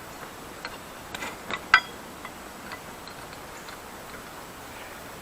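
Scattered sharp metal clicks and light knocks from a rusty blacksmith's post vise as its screw is worked into the thread, one louder click a little under two seconds in.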